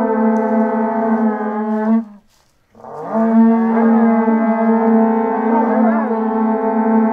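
Several horagai conch-shell trumpets blown together in long, low, steady blasts, their pitches wavering and bending against one another. The blasts break off about two seconds in for under a second, then start again.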